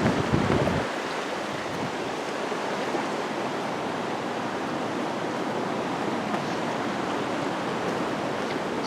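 River water rushing steadily, with a low rumble of wind on the microphone during the first second.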